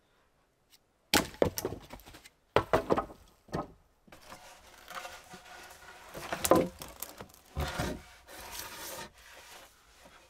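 Wooden poles and a board knocking and clattering against each other as they are laid as a floor: several sharp knocks in the first few seconds, then wood scraping and rubbing on wood with a couple more knocks.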